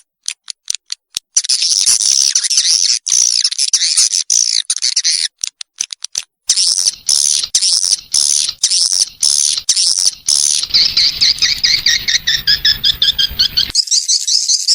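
Swiftlet lure recording: a dense chorus of rapid, high twittering chirps and clicks from swiftlets, with short gaps and sudden cut-offs where the track is edited together.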